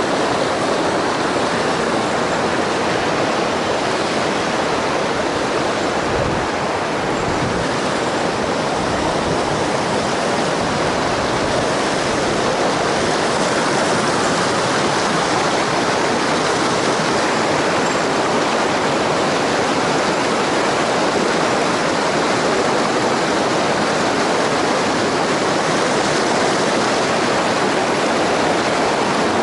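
Mountain stream water rushing, a steady loud wash with no breaks.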